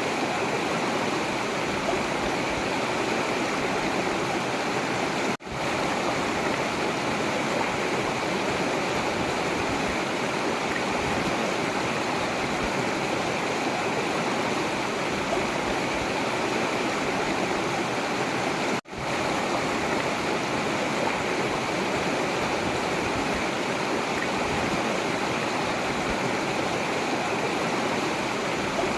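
Forest river water flowing in a steady, even rush, cutting out for an instant twice.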